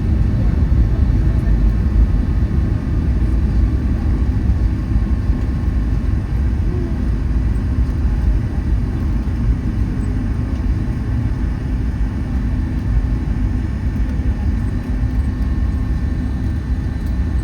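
Steady low rumble of a Boeing 757-200 passenger cabin on the ground after landing, with a faint steady whine over it.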